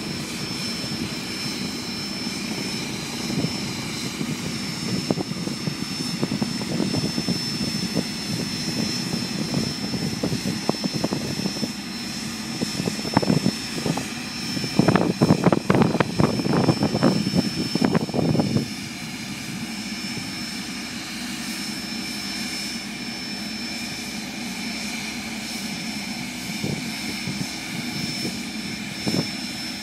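Propeller biplane's engine running at taxi power, a steady low rumble with a steady high whine above it. About 13 seconds in, a louder, rough buffeting sets in and cuts off abruptly around 18 seconds.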